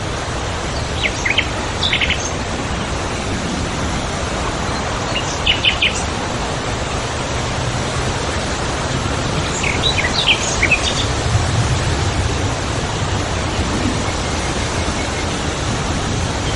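Woodland birds calling in brief clusters of quick, high chirps a few seconds apart, over a steady rushing background noise.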